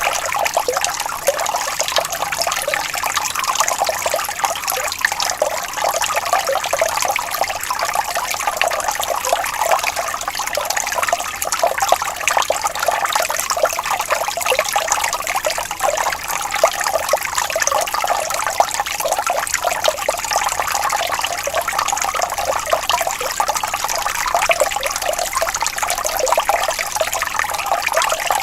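Water flowing and trickling steadily, a continuous babbling splash with little low rumble.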